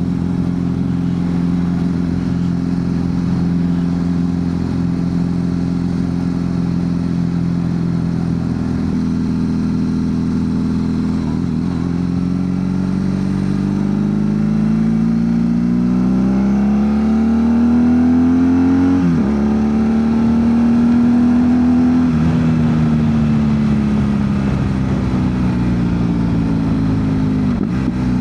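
BMW R1200 GS Adventure boxer-twin engine through a GRmoto slip-on exhaust, heard while riding: it holds a steady note at cruising speed, then pulls up through the revs with a quick gear change partway through, and eases off slowly toward the end.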